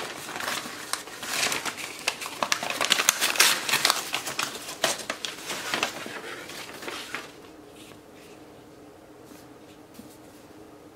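Brown kraft paper masking, held on with painter's tape, being pulled off a book and crumpled: irregular crinkling and rustling that stops about seven seconds in.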